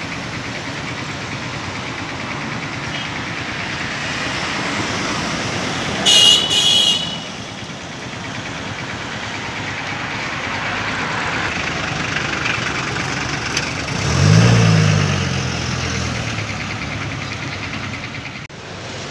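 Steady city road traffic: car engines and tyre noise. About six seconds in, two short high-pitched car horn toots; around fourteen seconds, a deeper pitched tone rises and falls.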